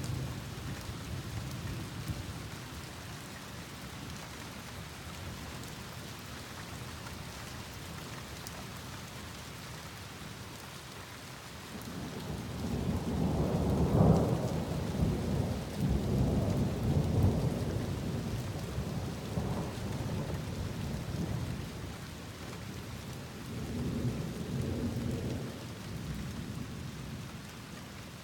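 Thunderstorm: steady rain falling, with a long rolling rumble of thunder that swells about twelve seconds in, peaks soon after and dies away over several seconds, then a shorter, weaker rumble near the end.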